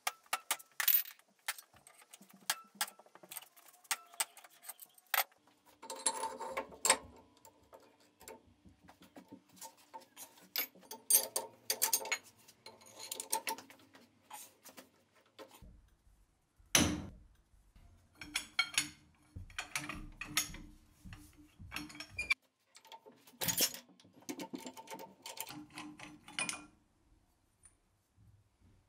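Irregular metallic clicks, clinks and knocks of wrenches, a bar and steel parts as the bolts of a rusty screw press are undone, with one sharp louder knock about two-thirds of the way in.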